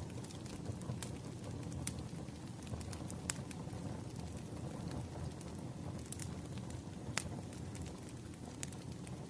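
Wood fire burning with a steady low rumble, crackling with scattered sharp pops, the clearest about two, three and seven seconds in.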